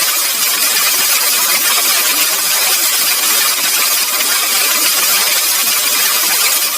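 Loud, steady, harsh electronic noise with most of its energy high up and nothing much in the bass, unchanging throughout: a synthetic sound effect.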